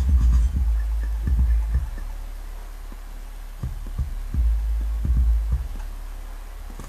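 Sub-bass test track: deep bass notes below about 100 Hz throbbing in long swells, with little else above them. It is loudest in the first two seconds and again from about four and a half seconds in, with a quieter stretch between.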